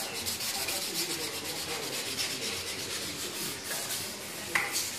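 Wet-and-dry abrasive paper rubbed by hand over wet, primed Honda XL100S body panels in quick back-and-forth strokes: wet flatting the paintwork ready for the colour coat. A single sharp click about four and a half seconds in.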